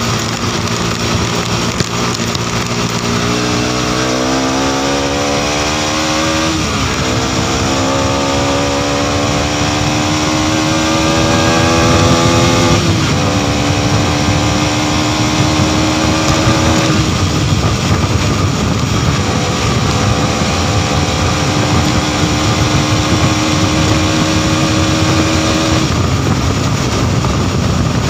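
Modenas NS200's single-cylinder engine accelerating hard through the gears: its pitch climbs, drops sharply at upshifts about six and thirteen seconds in, then holds nearly steady at high speed. Heavy wind rush on the microphone runs underneath.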